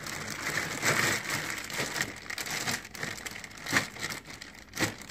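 Crinkling and rustling of plastic packaging being handled while rummaging in a small fridge, with scattered clicks and a couple of sharper knocks near the end.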